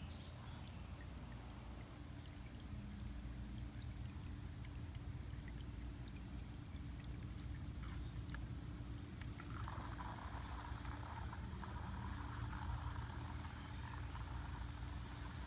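Water trickling and splashing from a small motorized toy fish spouting water as it swims in a pool, over a steady low hum. The splashing gets louder about two-thirds of the way through.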